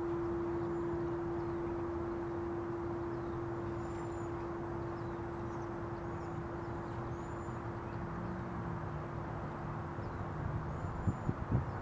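A singing bowl's single steady tone ringing on and slowly fading out, over an outdoor hush with faint bird chirps. A few soft knocks come near the end.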